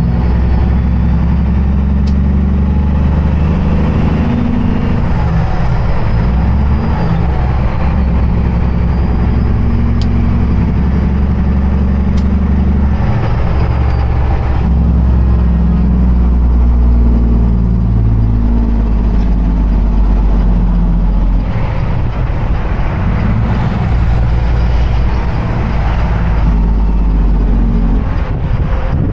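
Semi truck's diesel engine pulling under load, heard loud inside the cab. The engine note changes several times as the gears are shifted on a manual gearbox.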